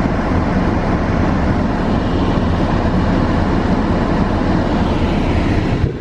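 Steady road and tyre noise inside a moving car's cabin: a continuous low rumble with hiss over it.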